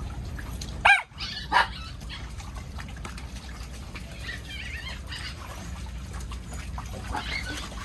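A dog barks twice in quick succession about a second in, loud and sharp, over the steady splashing of dogs wading in a shallow paddling pool.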